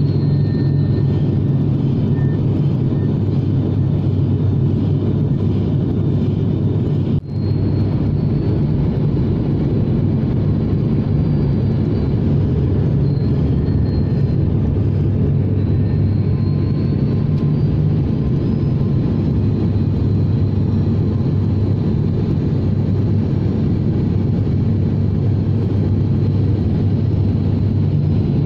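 Steady drone of a turboprop airliner's engines and propellers heard from inside the cabin, with a constant low propeller hum under the noise. The sound dips out for an instant about seven seconds in.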